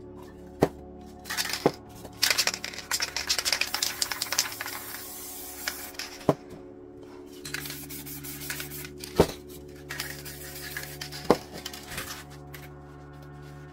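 Spray paint cans hissing in short spurts for a few seconds, with several sharp knocks of cans or tools set down on the work surface, over steady background music.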